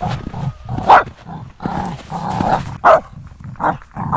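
A golden retriever–spaniel cross dog barking: a handful of short, sharp barks, the loudest about a second in.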